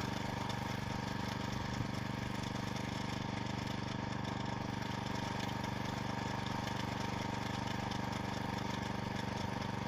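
Carver MT-650 walk-behind tractor's single-cylinder petrol engine running steadily as it drives a rotary disc mower through grass.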